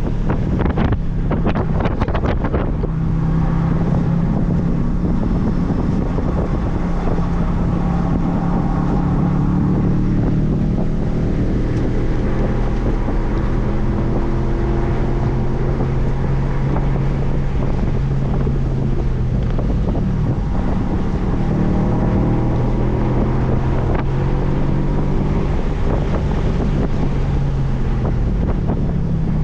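Audi B7 RS4's 4.2-litre V8 running hard on track, its note slowly climbing and dropping, under heavy wind noise on the microphone. The wind buffeting is strongest in the first couple of seconds.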